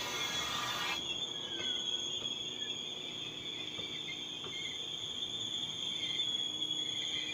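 Steady high chirring of crickets over the low rumble of railway passenger coaches rolling past. A rushing hiss stops abruptly about a second in.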